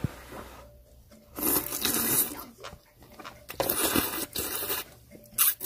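A person slurping noodles from chopsticks in three noisy sucking bursts: a long one about a second and a half in, another near four seconds, and a short one near the end.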